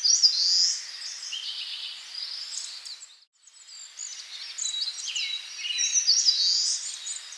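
Several small songbirds singing and chirping over a light hiss, breaking off briefly about three seconds in.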